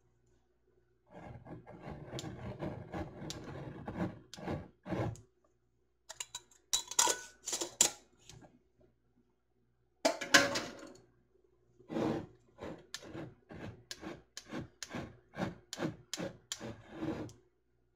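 Glass canning jars handled with their metal lids and screw bands: a few seconds of rubbing with light clicks, then sharp clinks and a louder clatter of glass and metal. Near the end comes a run of short scraping strokes, about two a second, as the bands are twisted on.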